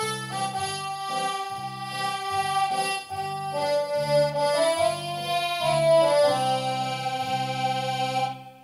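Roland FR-8x digital accordion playing a melody over a pulsing bass-and-chord accompaniment, ending on a held final note that fades out near the end.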